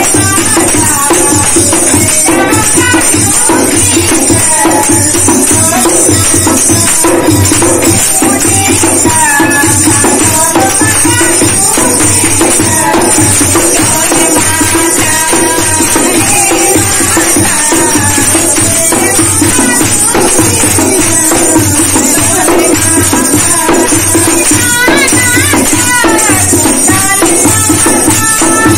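Two women singing a devotional kirtan bhajan in unison, with a dholak hand drum keeping a steady beat and a jingling hand percussion instrument playing along.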